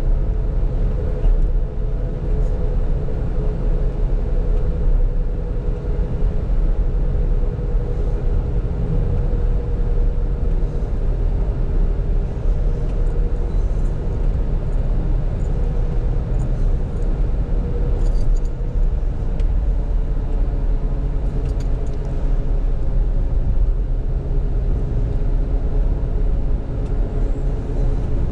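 Engine and road noise inside the cabin of a moving Ford: a steady low rumble with a droning hum over it.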